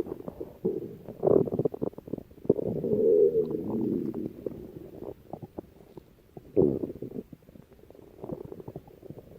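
A person's stomach growling: irregular low gurgles and rumbles, swelling louder about a second in, again around three seconds in, and once more about six and a half seconds in.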